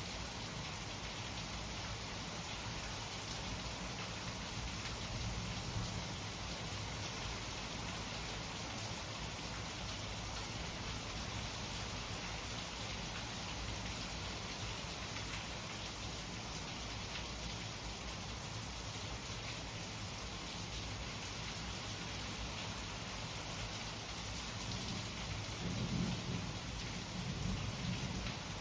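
Steady rainfall pattering down, with a low rumble swelling up near the end.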